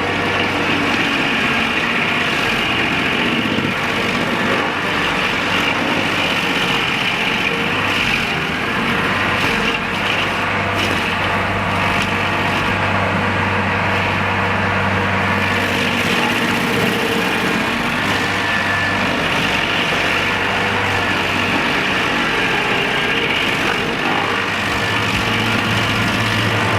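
Engine of a Vermeer SC70TX stump grinder running steadily, with no let-up.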